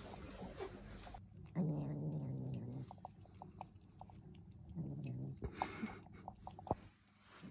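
Cat giving two low, drawn-out growls, the first over a second long, the second shorter, as the cats share a tub of yogurt. Small wet clicks of licking and chewing run between and after the growls.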